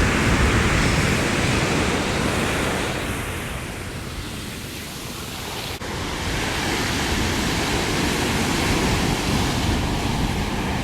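Sea surf washing onto a sandy beach, a steady rush with wind on the microphone; it eases for a few seconds in the middle, then builds again.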